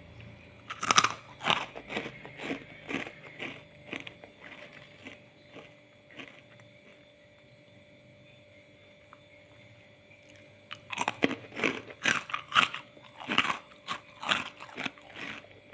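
Crisp puffed keropok crackers being bitten and chewed with quick, sharp crunches in two bouts: one starting about a second in and fading by about four seconds, and a louder one from about eleven seconds in.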